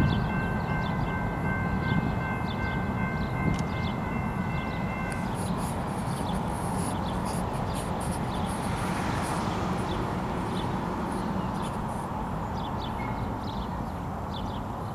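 BNSF freight train rumbling along the rails, slowly fading. A steady high-pitched ringing stops abruptly about five seconds in, and birds chirp faintly.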